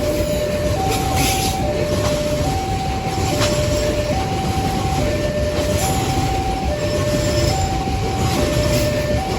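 A long coal train rolling past with a steady rumble and occasional clanks from the wheels. Over it, an electronic level-crossing alarm sounds two tones, high and low, alternating regularly, each just under a second long.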